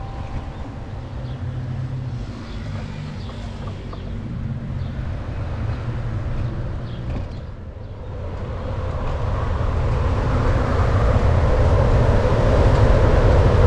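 Wind rumbling on the microphone of a moving e-bike, louder from about halfway through.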